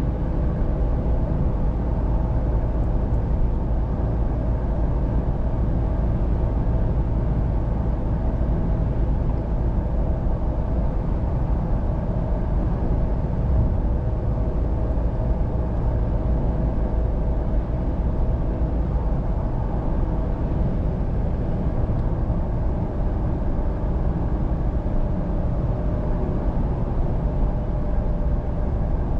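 Cabin noise of a 2023 Chevrolet Colorado ZR2 pickup cruising at about 70 mph: a steady rumble of tyres on the road and the drivetrain, with a faint steady hum over it.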